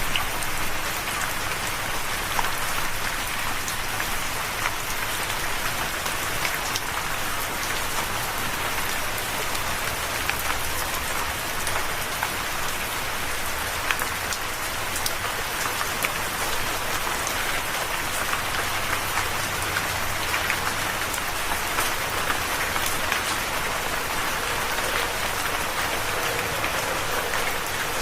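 Steady rain falling on a surface, an even hiss with many distinct drop ticks scattered through it.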